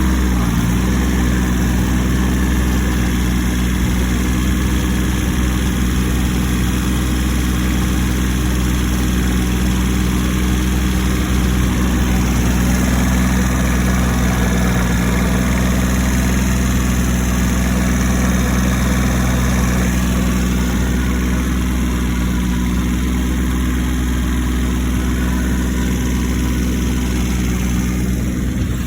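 Tractor engine and rotary tiller running steadily under load during rough tilling, with an abnormal noise from the tiller's chain case.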